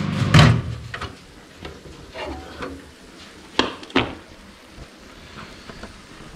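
Dishes and cookware handled: a loud clatter about half a second in, then scattered knocks and two sharp clinks a little after three and a half seconds. A low steady hum cuts off about half a second in.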